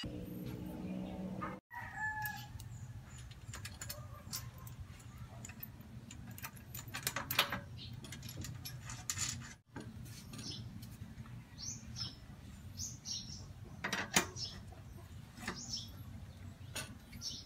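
Chickens clucking and crowing in the background, with scattered sharp clicks and taps of bicycle parts being handled and fitted.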